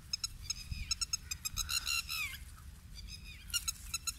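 Lapwing chicks calling: quick runs of short, high-pitched peeps that end in downward-sliding notes, in two bouts, the second starting near the end.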